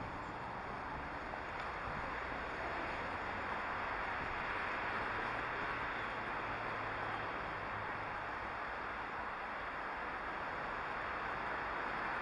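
Steady din of road traffic, growing a little louder about three seconds in.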